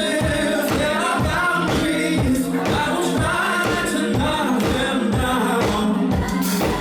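Live dance-pop song: a sung vocal line over a steady four-on-the-floor kick drum, about two beats a second, played loud through a club PA.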